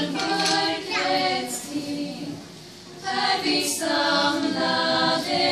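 A small choir of young women in Lucia dress singing together in held notes. The singing drops away briefly about two seconds in, between phrases, and comes back about a second later.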